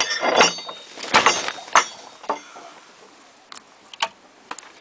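Metal clinks and rattles of a wrought-iron hook-and-eye latch being unhooked from a wooden door. Several sharp knocks come in the first two seconds, then a few quieter clicks near the end.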